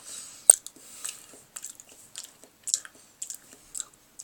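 A person chewing and eating close to the microphone: irregular wet mouth smacks and clicks, with one sharper click about half a second in. The food is potato gratin.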